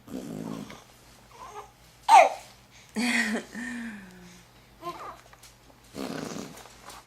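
Infant babbling and cooing in short vocal sounds, with one loud high squeal that falls steeply in pitch about two seconds in.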